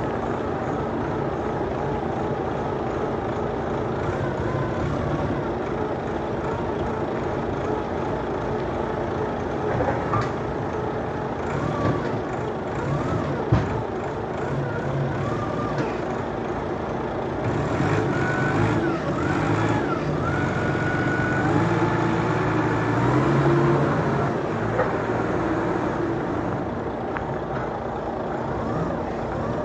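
Heavy vehicle engines running steadily during container loading by forklift, with a single sharp knock about thirteen seconds in.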